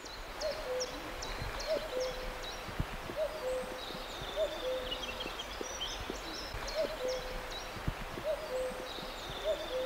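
A bird repeating a low, hooting two-note call over and over, a short note then a held slightly lower one, while small songbirds chirp high in the background.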